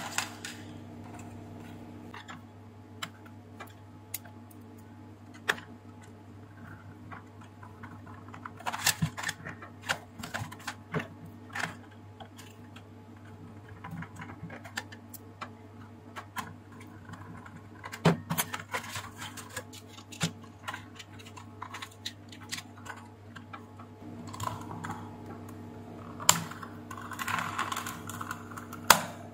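Scattered plastic clicks and taps as a steam iron's plastic housing parts are handled and fitted back together, with a screwdriver in use. The clicks come in clusters, over a steady low hum.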